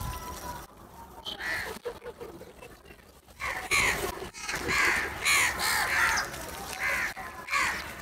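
House crows cawing: a few scattered caws at first, then from about three seconds in a dense run of harsh, overlapping caws from several birds.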